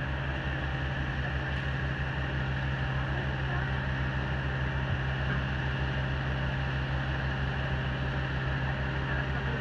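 Truck-mounted crane's diesel engine running steadily under load, a low drone with a fast, even throb.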